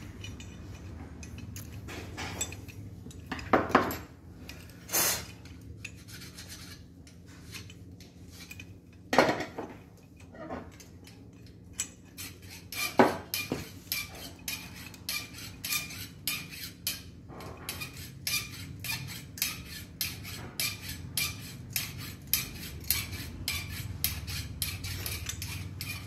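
Steel parts of a copper-tube flaring tool clinking and clicking as the flaring bar is tightened and the yoke is fitted and turned. There are scattered sharp clicks at first, then from about halfway a quick run of small metallic clicks, roughly three a second.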